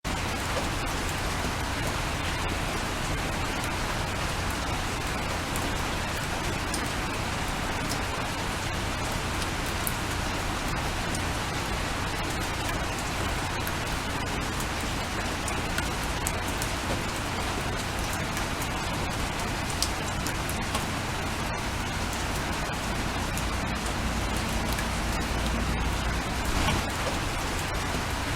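Steady rain falling, a dense even hiss with scattered sharper drop ticks. A low rumble runs underneath and swells slightly near the end.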